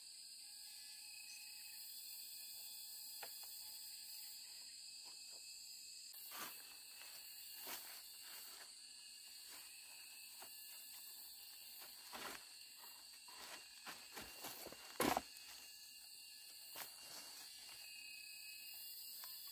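Faint, steady insect chorus in the high pitches, with scattered soft knocks and rustles; the loudest is a brief thump about fifteen seconds in.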